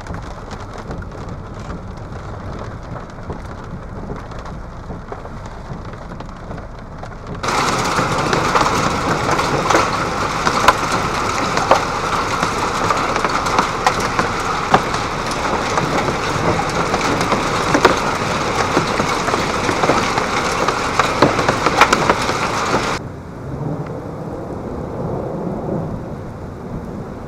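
Heavy rain and hail in a severe thunderstorm, with a steady rush of downpour and wind. In a louder stretch through the middle, many sharp ticks and cracks of hailstones strike.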